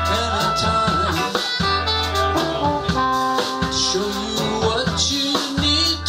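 Live band of trombone, trumpet, saxophone, electric guitar, electric bass and drum kit playing an instrumental stretch between sung lines, with long held notes over a steady bass line and drum beat.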